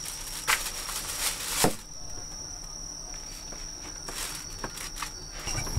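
A plastic carrier bag rustling and being set down on a wooden counter, then a paper food tray handled, in short crinkles and light knocks, the loudest about one and a half seconds in. A steady high insect trill runs underneath.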